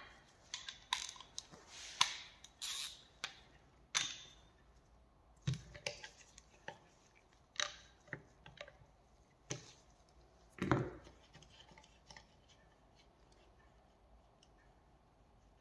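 Hand tools on the connecting-rod cap nuts of a VW aircooled engine's crankshaft: a wrench working the nuts loose, with scattered sharp metallic clicks and clinks at uneven intervals. The clicks thin out after about eleven seconds to a few faint ticks.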